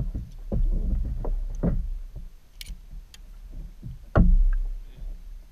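Knocks and bumps against a plastic kayak's hull as gear is handled, with one loud thump about four seconds in, over a steady low rumble.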